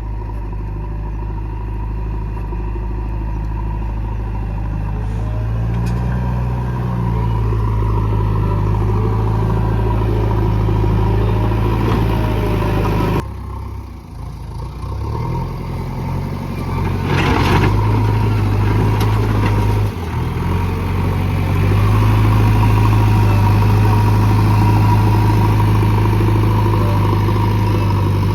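JCB excavator's diesel engine running steadily, its load and pitch shifting as the machine works. The sound drops suddenly around the middle and a short clatter follows a few seconds later.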